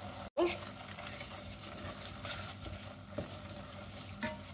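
Scallops and shrimp sizzling gently in butter and reduced white wine in a stainless saucepan, with a few light knocks of a wooden spoon stirring them in the second half.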